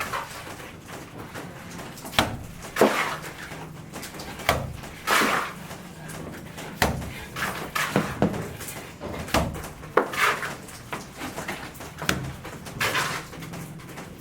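Irregular knocks and bangs mixed with short scraping sounds, about one every second or so, from building work on a house under construction.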